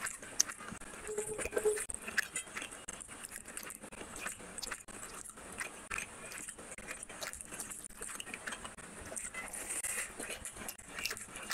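Wet eating sounds of rice and fish curry eaten by hand: fingers squishing and mixing rice with gravy on a plate, and chewing, as a dense run of small sticky clicks and crackles.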